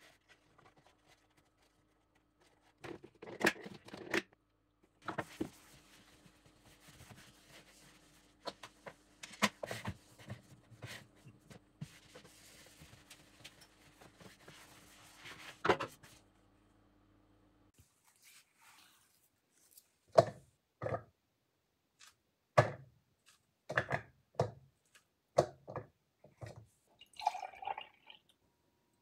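Kitchen clean-up sounds: a cloth rubbing over a glass-ceramic hob with scattered knocks over a faint steady hum, then a run of sharp clicks and taps, and milk pouring into a drinking glass near the end.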